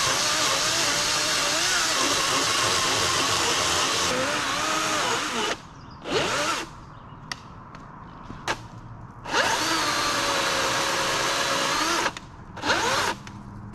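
Cordless electric saw cutting through fallen tree logs. The motor runs under load for about five seconds and stops abruptly when the trigger is released. After a short burst and a few clicks it runs again for a few seconds, then gives one more brief burst near the end.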